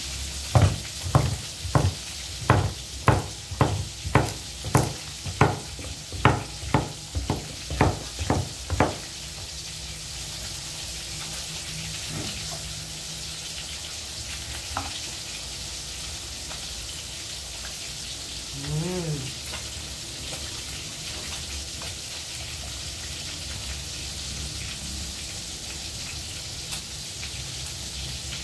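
Kitchen knife chopping squash on a wooden chopping board, about two chops a second, stopping about nine seconds in. Under it, the steady sizzle of oil frying in a wok.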